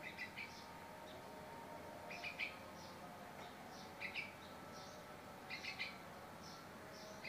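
Javan myna chirping: four short clusters of high chirps, roughly every two seconds, over a faint steady background hum.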